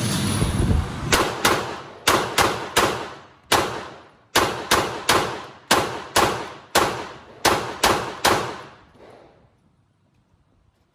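A series of about seventeen gunshots fired at a fairly steady pace over about seven seconds, some in quick pairs, each followed by a fading echo.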